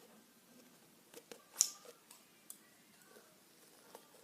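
Scissors snipping through firm butter slime: one sharp snip about a second and a half in, with a few lighter clicks around it.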